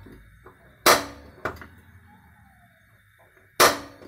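Spark igniter of a two-burner LPG gas hob snapping twice, about three seconds apart, each sharp click followed by a softer one, as the front burner is tried without catching.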